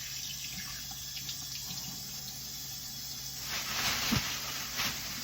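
Kitchen tap running as raw chicken leg quarters are rinsed under it. The water gets louder for a moment about three and a half seconds in, followed by a couple of light knocks.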